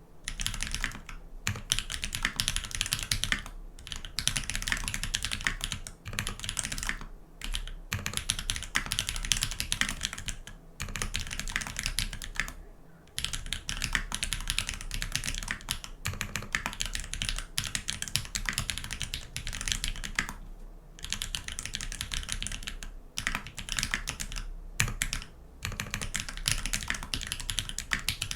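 Fast continuous typing on a custom mechanical keyboard with lubed Holypanda tactile switches on a brass plate in an aluminium-style TX65 V2 case, keystrokes clacking in dense runs broken by brief pauses.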